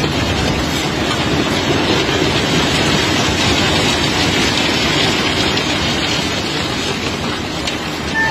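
Steady rumbling and grating of cobblestones being unloaded from a barge. A short beep sounds right at the end.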